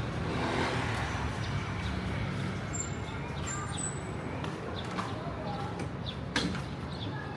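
Busy street ambience: a steady hubbub of indistinct voices and traffic, with a few short high chirps and one sharp knock about six seconds in.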